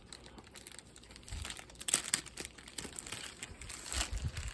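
Clear plastic wrap crinkling and crackling as it is peeled off a rolled canvas by hand, in irregular bursts that are loudest about two seconds in and near the end.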